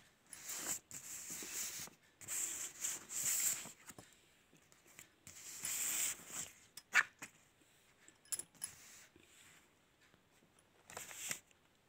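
Paper greeting cards rustling and sliding over a cloth bedsheet as they are handled and laid out side by side, in a string of soft rustling bursts. A single short sharp sound comes about seven seconds in, with a few light taps after it.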